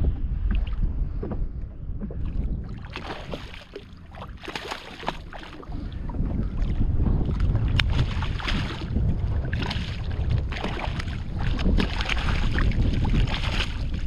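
Strong wind buffeting the microphone, with irregular water splashing as a hooked redfish thrashes at the surface beside the boat.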